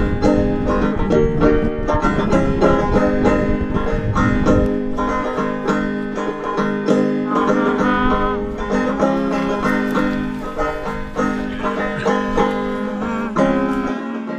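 Five-string banjo picked in a quick, continuous run of plucked notes, bluegrass style.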